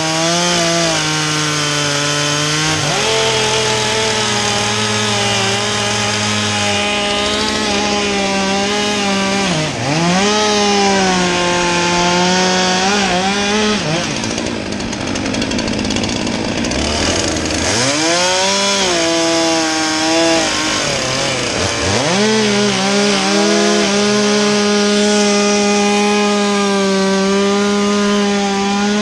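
Stihl two-stroke chainsaw running at high revs, its pitch dropping and climbing back up several times as the throttle is let off and opened again.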